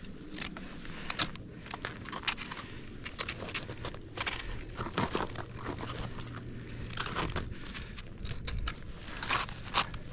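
Crampons crunching into soft snow and an ice axe being jabbed into the slope, an irregular run of steps while down-climbing steep snow.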